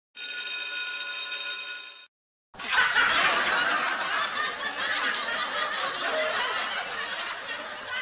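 A steady electronic tone with many overtones sounds for about two seconds and cuts off. After a short silence, a crowd of people laughs, as in a sitcom laugh track, for the rest of the time.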